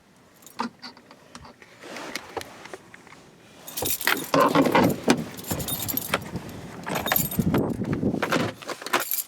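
Car keys jangling and clicking, with two louder spells of rattling about four and seven seconds in, as someone tries the ignition of a car that won't start.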